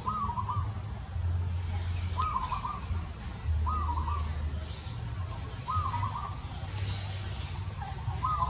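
A bird's short warbling call, repeated five times a couple of seconds apart, over a steady low rumble.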